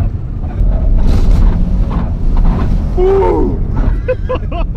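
Volvo car running, heard from inside the cabin as a steady low engine and road rumble. A passenger lets out a drawn-out exclamation about three seconds in, and there are short shouts near the end.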